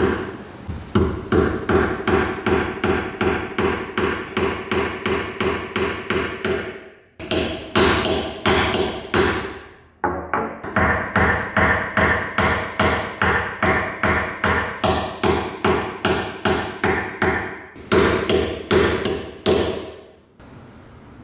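Small hammer peening the end of a metal pin into a rivet head to fix a wooden handle in a bread cutter's metal frame: rapid, even taps of metal on metal, about four a second. The tapping comes in three runs with brief pauses and stops shortly before the end.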